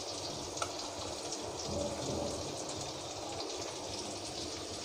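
Chopped onions, tomatoes and green chillies sizzling steadily in hot oil in a wok, with fine crackling throughout and one light tick about half a second in.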